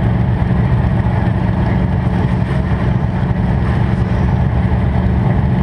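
Demolition derby car's engine idling steadily through open upright headers, a loud low pulsing run that does not rise or fall.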